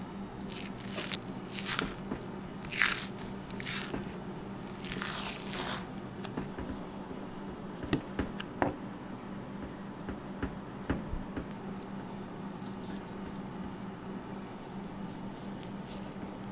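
Knife slicing through the fat of a slab of raw beef ribs: several separate cutting strokes in the first six seconds, then a few sharp clicks, over a steady low hum.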